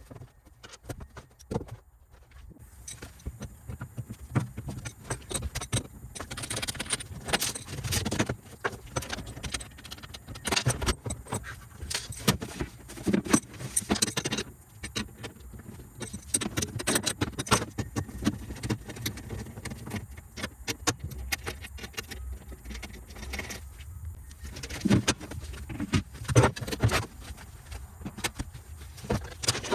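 Irregular clinking, rattling and knocking of hand tools and metal parts being handled, in many short uneven strokes.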